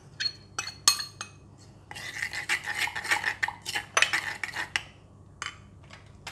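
Metal spoon tapping and scraping pounded chili out of a glass bowl, then stirring liquid chili sauce around a granite mortar, the spoon clinking and scraping against the stone. A few separate taps come in the first second or so; the stirring runs from about two seconds in to nearly five.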